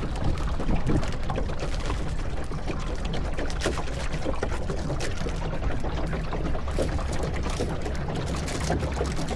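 Water running steadily with many small splashes and gurgles.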